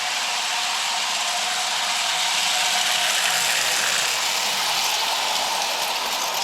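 Prewar Lionel standard gauge electric toy train running on the track: a steady whirring rattle of motor, gears and wheels with a faint whine, growing a little louder about three seconds in and easing off toward the end.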